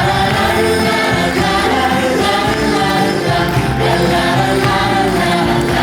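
Live musical-theatre band playing with a group of voices singing held notes.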